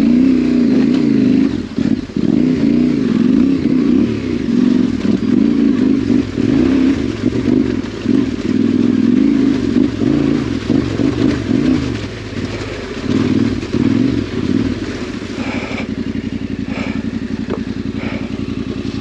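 Yamaha Ténéré 700's parallel-twin engine running under the rider over a rocky track, the revs rising and falling with the throttle, then holding steadier and a little quieter for the last several seconds. A few knocks of the bike over the stones come near the end.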